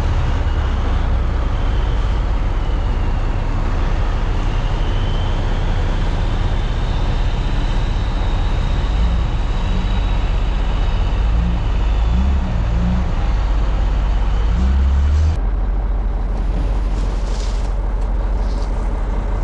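Mack sander truck's diesel engine running under way with steady low rumble and road noise. A faint high whine comes and goes over it.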